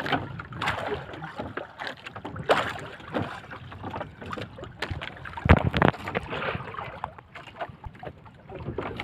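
Choppy sea water lapping and splashing against the wooden hull and bamboo outrigger of a small outrigger boat, with scattered small knocks and one loud thump about five and a half seconds in.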